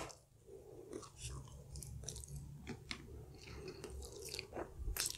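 A person biting into and chewing a slice of stuffed-crust chili crab pizza, close to the microphone, with many short crunches and clicks from the crust.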